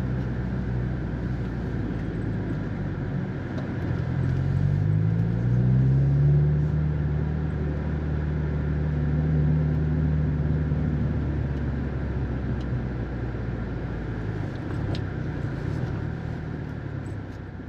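Subaru WRX STI's turbocharged flat-four engine heard from inside the cabin while driving. Its pitch rises for a few seconds as the car accelerates, then holds steady at cruise.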